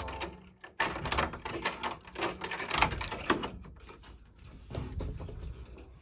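A quick run of clicks and knocks, like things being handled, busiest in the first half and thinning out toward the end.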